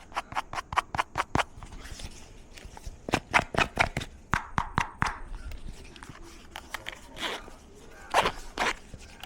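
Quick series of sharp taps and clicks from the headphones and their packaging being handled, coming in a fast run at first, then in clusters.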